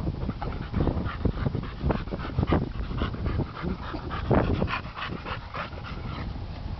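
Two boxer dogs play-fighting, making a rapid, irregular string of short vocal sounds and panting breaths.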